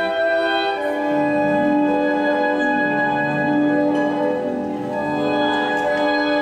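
Classical instrumental music with long held chords, changing about a second in and again around five seconds.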